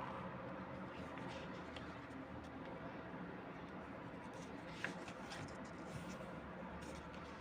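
Light handling of a CD and its packaging: scattered soft clicks and scratchy rustles over a steady hiss, with one sharper click nearly five seconds in.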